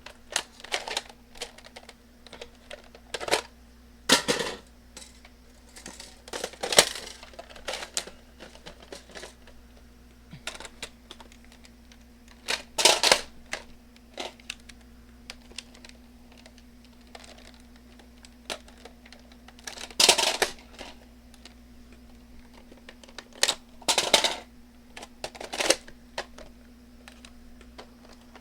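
Irregular plastic clicks and clacks of Nerf foam-dart blasters and their magazines being handled and reloaded, with a few louder snaps spread through.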